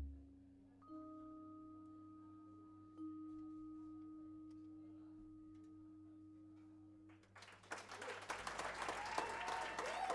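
Final vibraphone notes ringing and slowly fading, with two soft strikes about a second and three seconds in, at the close of a jazz quintet piece. Audience applause breaks out about seven seconds in, with a whistle near the end.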